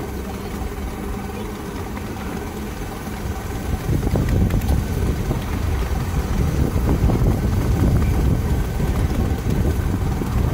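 Miniature railway train running, heard from an open carriage: a steady low rumble of the train and its wheels on the track, growing louder about four seconds in.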